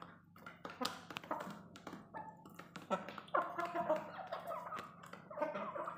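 Chickens clucking, with a longer drawn-out call about three seconds in and another near the end, among a few short clicks.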